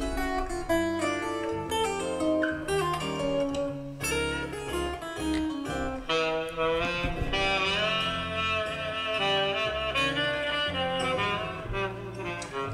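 Recorded jazz played back through a back-loaded horn loudspeaker, a saxophone carrying the melody over a rhythm section, with a long melodic line from about halfway through.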